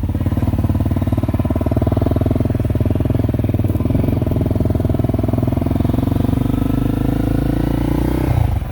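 Motorcycle engine running steadily close by, a fast even stream of firing pulses, with a brief change in the engine note near the end.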